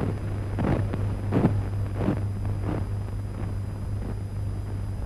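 Steady low hum and hiss of a 1930s film soundtrack, with faint, indistinct sounds recurring under it about every 0.7 s.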